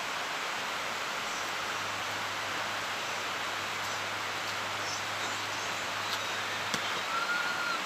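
Steady outdoor background hiss with a few faint clicks, and one short high tone near the end.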